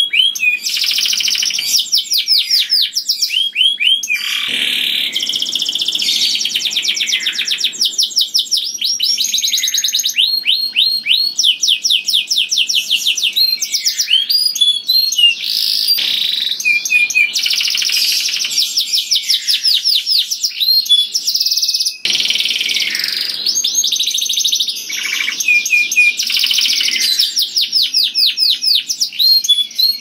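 Domestic canary singing a loud, melodious, unbroken song. It is made of fast trills and rolls that switch to a new phrase every second or two.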